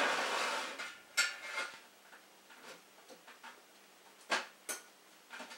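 A thin metal hand tool scraping and clinking in a small hole in thin sheet-steel stovepipe, enlarging a pilot hole until the damper's pin will slide through. A scrape fades out over the first second, then come two sharp metallic clinks about a second in and two more a little past four seconds.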